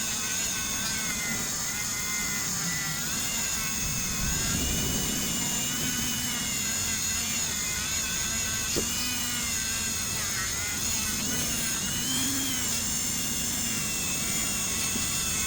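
Small high-speed power tool running steadily while buffing copper with red rouge polishing compound. It gives a continuous high whine whose pitch wavers up and down.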